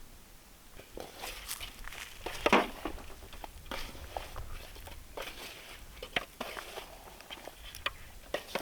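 Hands working salt, gram flour and spice paste into raw catla fish pieces, giving soft, irregular squelching and rubbing with scattered small clicks, one louder stroke a couple of seconds in.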